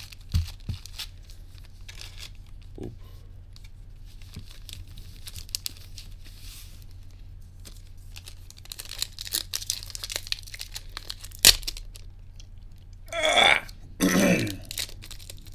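Foil Pokémon booster-pack wrappers crinkling and tearing as they are handled and opened by hand, with scattered sharp crackles and one louder snap. Near the end come two short, low, throaty vocal sounds.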